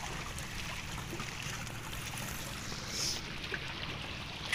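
Shallow seawater sloshing and trickling, a steady watery wash with small scattered splashes and a brief louder burst about three seconds in.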